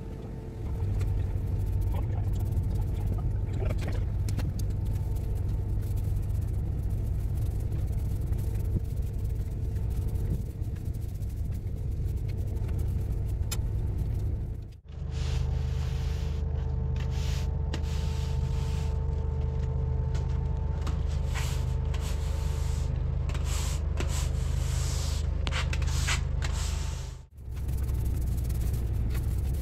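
A steady mechanical rumble like an engine or motor running, with a constant hum over it. It cuts out for a moment twice, about 15 and 27 seconds in, and faint scratchy sounds come and go over it in the later part.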